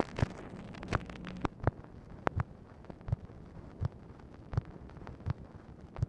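Hiss with scattered, irregular clicks and pops: surface noise of an old Dictabelt telephone recording running on after the call ends, cutting off abruptly at the very end.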